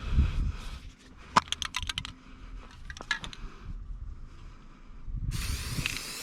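Sharp mechanical clicks and rattles: a dull thump at the start, a quick run of clicks about a second and a half in, a few more near the middle, then a steady hiss for the last second or so.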